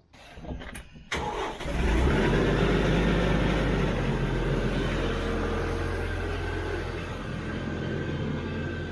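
A few clicks, then the TYM T574 compact tractor's diesel engine cranks briefly about a second in, catches and settles into a steady idle.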